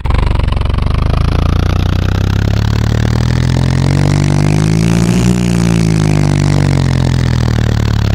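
Monster truck engine sound effect, running loudly and revving: its pitch climbs steadily to a peak about five seconds in, then falls away again.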